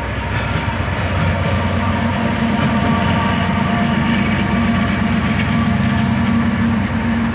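Norfolk Southern GE AC44C6M (DC-to-AC rebuild) diesel locomotive passing close by: steady low diesel engine drone over the rolling of its steel wheels on the rails. The engine drone strengthens about two seconds in.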